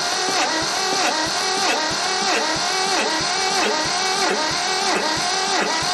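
Electric starter cranking a two-cylinder Mitsubishi diesel tractor engine over without it firing, its whine dipping on each compression stroke about three times a second. The injector lines are cracked open and the cranking is to bleed air and push fuel up to the injectors.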